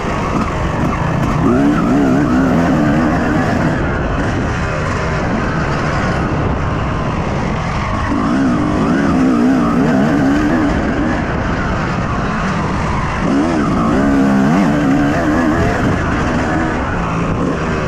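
Yamaha YZ250 two-stroke motocross engine running hard under way, its pitch climbing and falling as the throttle is worked, with three strong surges about 2, 8 and 13 seconds in.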